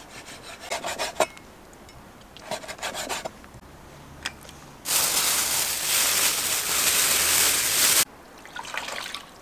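Cleaver strokes on a wooden chopping board as beef intestine is cut into sections, in two short runs. Then comes a loud, steady hiss lasting about three seconds that stops abruptly.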